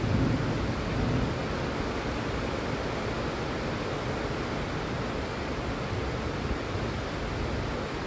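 Steady hiss of rainfall over a city, with the low rumble of a thunderclap dying away in about the first second.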